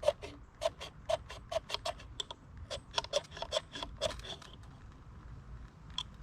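A steel edge scraping fatwood in quick, even strokes, about four a second, making shavings to light a fire. The strokes stop about four and a half seconds in, and there is one more stroke near the end.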